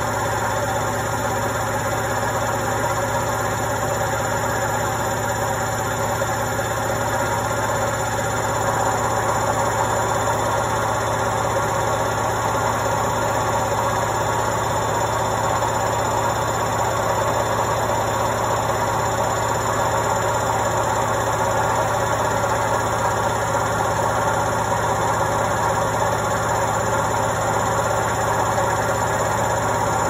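Indesit front-loading washing machine on its spin cycle at full speed: a steady whir of the spinning drum over the motor's low hum, getting a little louder about nine seconds in.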